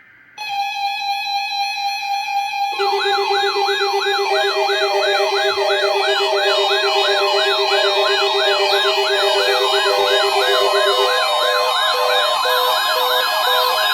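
Several weather alert radio alarms going off together for the weekly test. A steady buzzing tone is joined about three seconds in by rapid pulsing beeps and fast siren-like warbles, all sounding at once.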